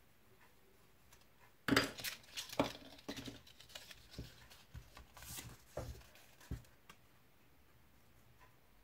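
Paper and card rustling and tapping on a tabletop as a folded paper accordion is handled, then a few short snips of small scissors trimming the folded paper. The clicks start about two seconds in, are loudest at first, and stop about seven seconds in.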